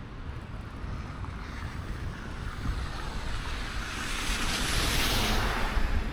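Wind buffeting the microphone while a vehicle passes on a slushy street: the hiss of its tyres swells over a few seconds, loudest about five seconds in, then fades.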